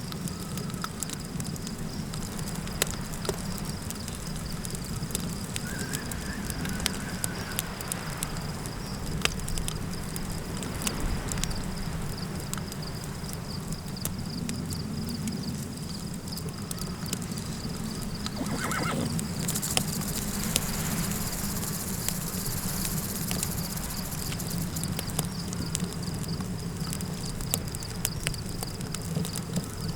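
Campfire crackling with scattered small snaps over a steady low wind rush and a thin, steady high-pitched tone. A horse whinnies briefly about 19 seconds in, followed by a short hissing rush of wind.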